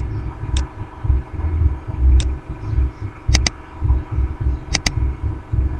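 Computer mouse clicks, several in quick pairs like double-clicks, over an irregular low throbbing rumble.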